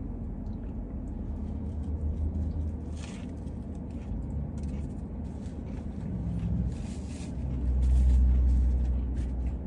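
Low rumble in a parked car's cabin while a man chews a mouthful of sandwich, with a brown paper bag rustling near the end as he wipes his mouth with it.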